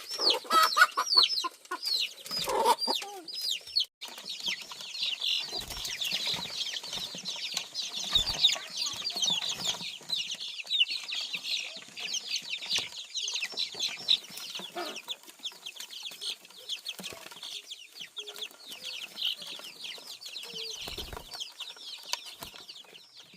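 A flock of chickens feeding, with constant high-pitched peeping and clucking, loudest in the first few seconds.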